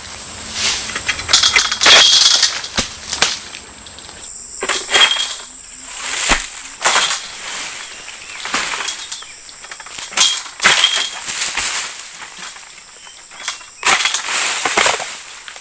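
Pole-mounted harvesting sickle (egrek) hacking at an oil palm's fronds. Repeated bursts of rustling and cracking palm leaves come about every one to two seconds, the loudest about two seconds in.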